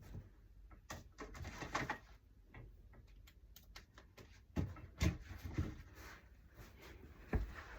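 A few soft, scattered knocks and rustles of handling.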